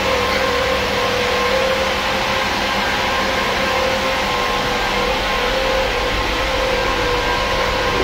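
Iveco 72C17 refrigerated truck running, a steady mechanical hum with a constant tone on top.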